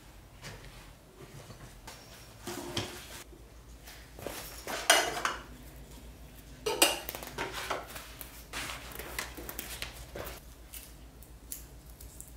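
Dishes and cutlery being handled and set down: a series of clinks and knocks, some with a short ring, the loudest about five and seven seconds in.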